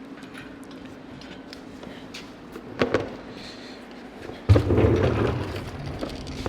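A short knock, then about four and a half seconds in a heavy sudden thump with about a second of low rumbling rattle as the freshly pulled engine and transmission shift on the hoist.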